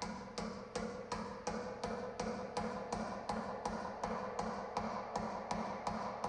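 Background music with a steady ticking beat, nearly three beats a second, over held tones.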